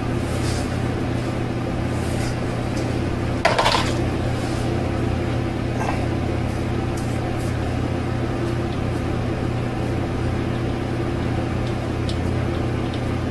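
A steady low mechanical hum, with faint scrapes of a cartridge razor drawn over a lathered scalp and one brief louder hiss about three and a half seconds in.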